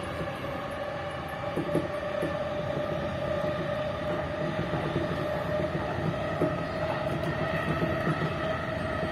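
JR East E233 series electric train running at speed, heard from inside the driver's cab: a steady rumble with a steady whine over it, and a few short clicks from the wheels on the track.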